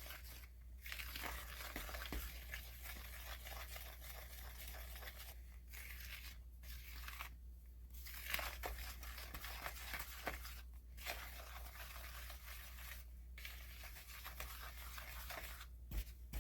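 A wooden spoon stirring thick cookie dough in a mixing bowl: a continuous rough stirring noise broken by several brief pauses between strokes.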